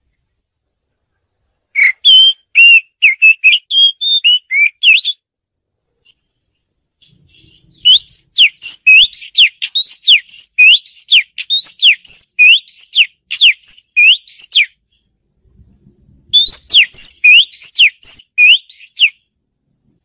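Oriental magpie-robin singing: three runs of rapid, clear whistled notes that sweep up and down, with pauses of a couple of seconds between them. The middle run is the longest.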